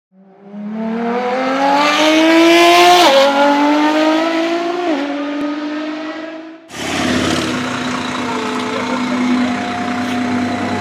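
A high-revving car engine accelerating hard, its pitch climbing and dropping sharply at two upshifts, then fading out. It cuts to an Audi R8 V10 Plus running steadily at low speed in street traffic.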